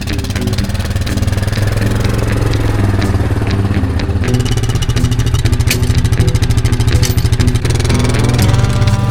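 Small gasoline engine running, its speed shifting about four seconds in and rising again near the end.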